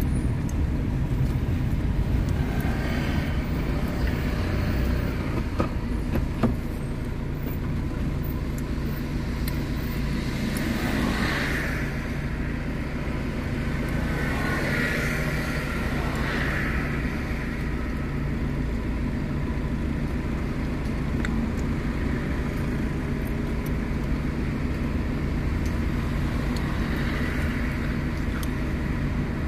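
A car moving slowly through city traffic and then idling in a queue: a steady low engine hum with road noise. A few brief, brighter sounds come in the middle.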